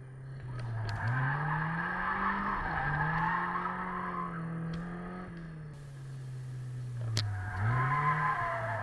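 Mazda MX-5 NC's four-cylinder engine revved hard while drifting, with tyres squealing under it. The revs rise about a second in, fall away after about five seconds, and climb again near the end with the squeal returning. A single sharp click comes about seven seconds in.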